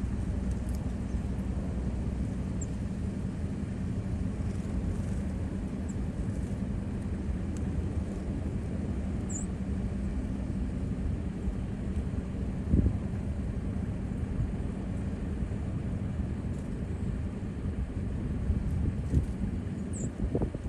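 Steady low outdoor rumble, with a few faint, short high bird chirps scattered through it and a brief thump about two-thirds of the way in.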